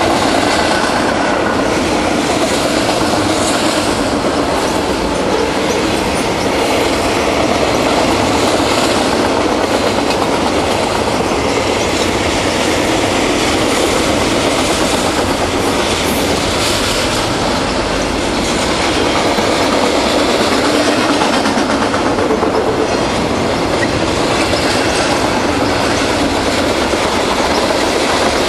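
Freight train cars rolling past at close range, double-stack container cars giving way to open-top hopper cars near the end: a loud, steady rumble and rattle of steel wheels and car bodies on the rails.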